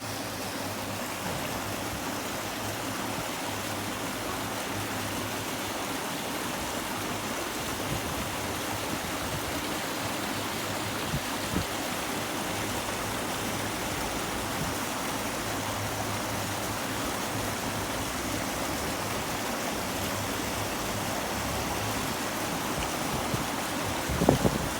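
River water flowing steadily: an even, unbroken rush of water noise spread across all pitches. Near the end a few short, low bumps break in over it.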